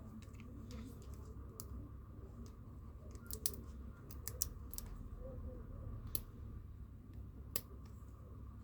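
Small sharp clicks and taps, irregular and a few at a time, from plastic smartphone parts and small tools being handled, over a low steady room hum.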